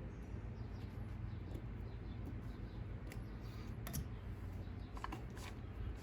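A few small, sharp clicks and taps of plastic and metal RC car parts being handled as a drive shaft pin and hub are fitted, the sharpest about four seconds in and a quick cluster near the end, over a steady low hum.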